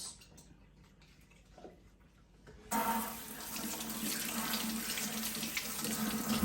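Kitchen sink faucet turned on about three seconds in, water running steadily into the sink as celery stems are rinsed under it.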